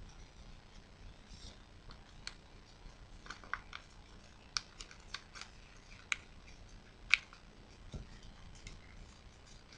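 Origami paper being folded and creased by hand, giving a scattering of short crisp crinkles and snaps, most from about two seconds in, the loudest around seven seconds in. A dull low thump follows about eight seconds in.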